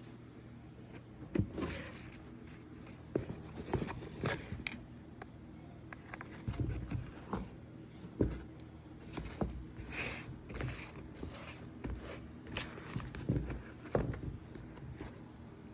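Hands handling a pair of suede-and-leather sneakers close to the microphone, making irregular rustles, scrapes and light knocks, over a steady low hum.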